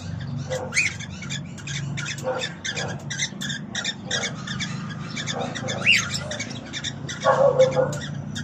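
Cockatiel chattering in a fast run of short chirps, with a couple of brief rising-and-falling whistles and a harsher, louder burst near the end.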